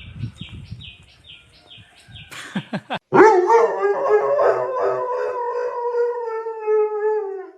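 A dog howling: one long howl from about three seconds in, sliding slightly down in pitch. Before it comes a quick run of short, high chirps, about three or four a second.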